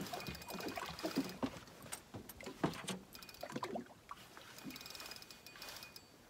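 Small boat drifting on open water: water slapping against the hull, with irregular knocks and clicks from the boat and the fishing gear.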